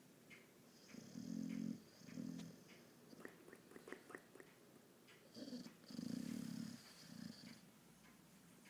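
Bulldog snoring in its sleep, in two bouts about four seconds apart. Each bout is a longer snore with a thin high whistle over it, followed by a shorter snore. Faint small clicks fall between the bouts.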